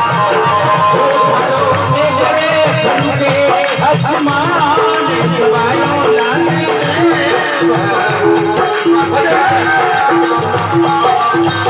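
Live Rajasthani devotional folk music (bhajan): a wavering melodic line over steady drum beats and a shaker, with a short note pattern repeating in the second half.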